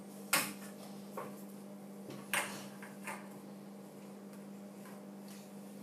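A few light knocks and clicks of small plastic toy caps being handled and set down on a wooden table, the two sharpest about half a second and two and a half seconds in, over a steady low hum.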